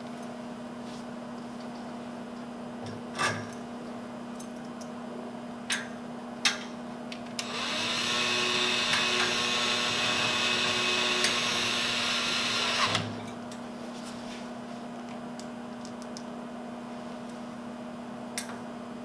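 Cordless screwdriver with a T30 Torx bit running for about five seconds, driving a screw that fastens a sidewall bracket to the enclosure's steel frame. A few sharp clicks come before it and one more near the end.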